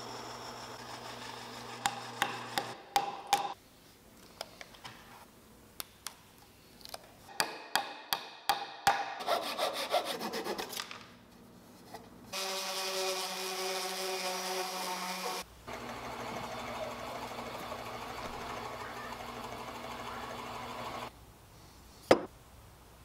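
Workshop sounds of tools working wood: a run of taps and clicks, then a few seconds of a machine running at a steady pitch, then a steady rubbing noise, with one sharp click near the end.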